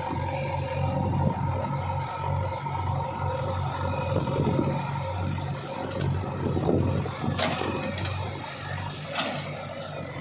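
JCB 3DX backhoe loader's diesel engine running steadily as the machine works, with irregular scraping and clattering. A single sharp knock comes about seven seconds in.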